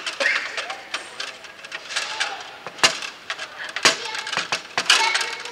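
Table football in play on a Bonzini table: sharp knocks and clacks of the ball against the figures and the rods, with three loud knocks about a second apart in the second half, over a low murmur of voices.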